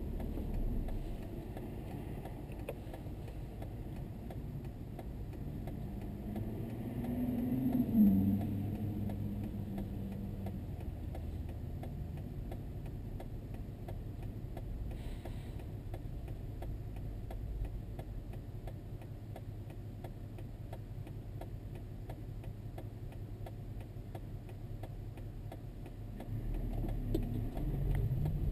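Cabin of a Toyota Estima Hybrid stopped at a traffic light: a low steady hum with a regular ticking. About eight seconds in, a short rising swell; near the end the hum grows louder as traffic starts to move off.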